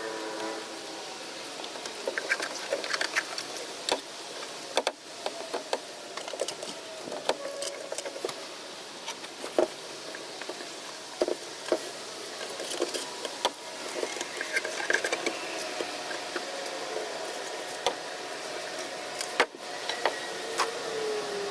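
Irregular clicks, taps and light knocks of hands handling tools and materials, over a steady background hum.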